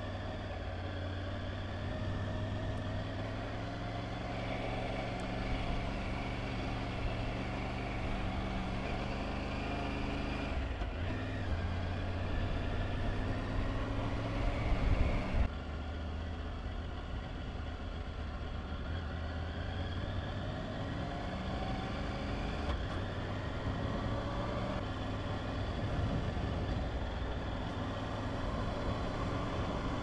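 Triumph Tiger 900 Rally Pro's three-cylinder engine running at low, steady revs, picking up slightly around thirteen to fifteen seconds in and then dropping back suddenly.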